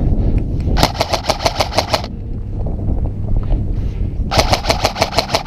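Airsoft M4 rifle firing two rapid bursts of BBs, about nine shots a second, each burst lasting roughly a second; the first about a second in, the second near the end.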